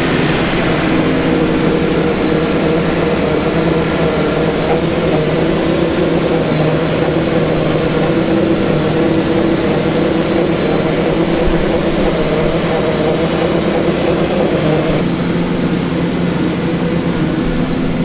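Fendt 409 tractor's diesel engine running steadily as it pulls a sand-bedding spreader, together with the spreader throwing sand into the freestalls.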